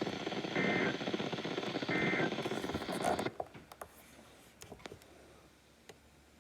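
Weather radio broadcast heard through heavy static: two short buzzy SAME data bursts about a second apart, the end-of-message code after the warning. About three seconds in the signal drops out, leaving faint hiss and a few clicks.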